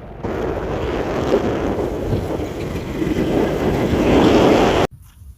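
Wind buffeting the microphone: a loud, uneven rushing noise that swells near the end and then cuts off abruptly.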